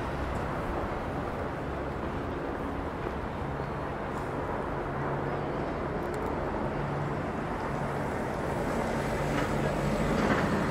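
Steady city street ambience, mostly the hum of passing traffic.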